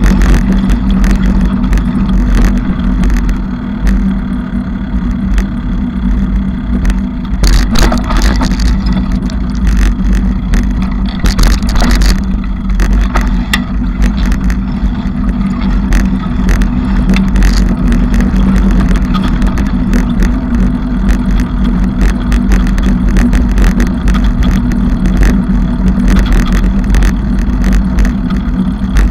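Noise of a bicycle being ridden: a steady low rumble with frequent rattles and clicks.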